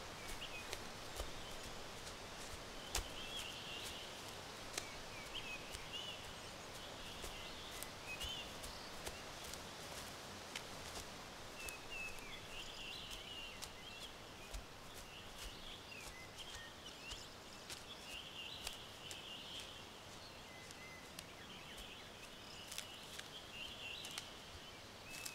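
Woodland ambience: small birds chirping in short twittering bursts every second or two over a low hiss, with scattered sharp clicks throughout.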